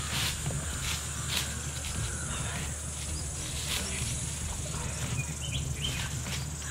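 Insects buzzing steadily in a thin high tone, with footsteps crunching through dry fallen leaves and a few sharp crackles.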